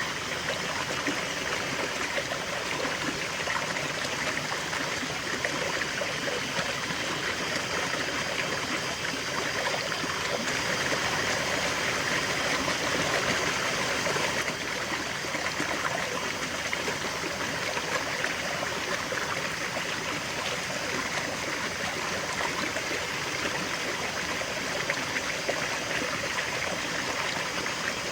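A river flowing steadily over stones, a continuous rush and burble of running water, slightly louder for a few seconds about ten seconds in.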